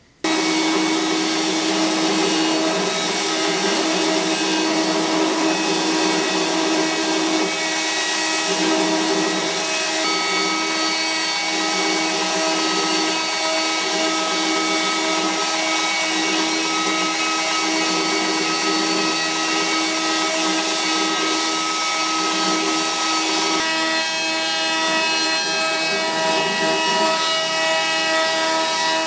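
Belt grinder running with a sword pommel being ground against the abrasive belt: a steady hiss of abrasive on metal over the machine's hum. It starts abruptly and changes tone about 23 seconds in.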